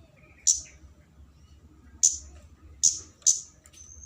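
Kemade flowerpecker (cabe-cabean) calling: four short, sharp, high-pitched 'cit' notes at uneven intervals, the last two close together.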